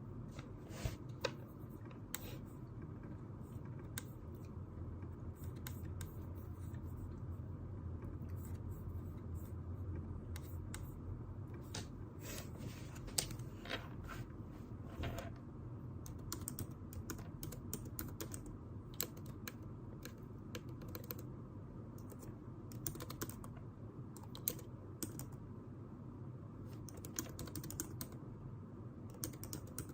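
Computer keyboard typing: scattered key clicks, some in short runs, over a steady low hum.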